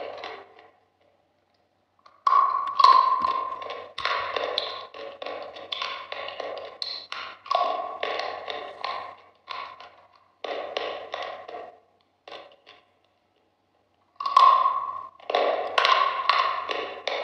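Close-up crunching of frozen, icy food being bitten and chewed, in runs of rapid crisp cracks. The crunching stops in a short pause about a second in, runs almost without a break for about ten seconds, pauses again, and resumes about two seconds before the end.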